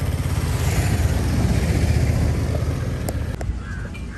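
Motorcycle engine running as the rider pulls away, fading over the last second or so. Two short clicks about three seconds in.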